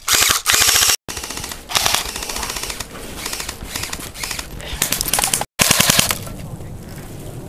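Airsoft guns firing full-auto: a fast rattle of shots in several bursts, cutting off abruptly twice.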